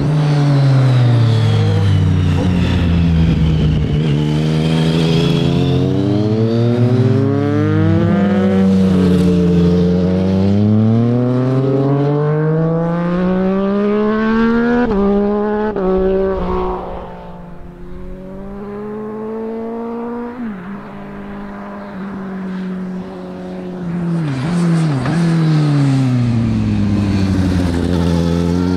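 Motorcycle engines passing one after another, revving hard through the gears. The pitch rises and drops back at each upshift, and falls away as each bike goes by. The sound dips in the middle, then another bike comes close and passes near the end.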